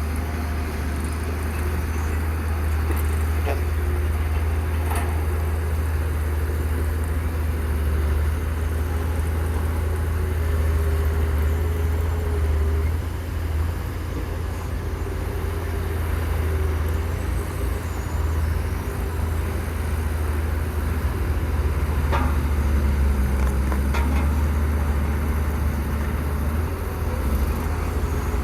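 Radio-controlled model construction machines running: a steady low rumble under a faint motor whine that drifts slowly in pitch, with a few light clicks.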